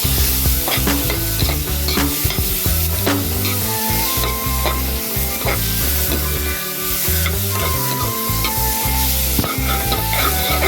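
Vegetables sizzling in butter in a pan while being stirred, with irregular clicks and scrapes of the utensil against the pan.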